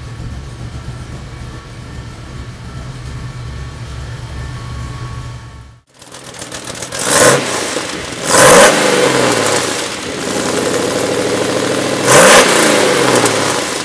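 1978 Ford F350's 351 Cleveland V8, fuelled on LPG, idling steadily; then, heard from under the truck at the exhaust, it is revved three times, each rev rising and falling back.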